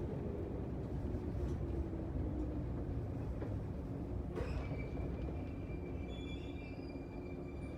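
Japanese 113 series electric train heard from inside its motor car, slowing: the rumble of wheels on rail with a faint falling whine from the motors and gears. About four and a half seconds in there is a knock, then a steady high squeal as the train nears its stop.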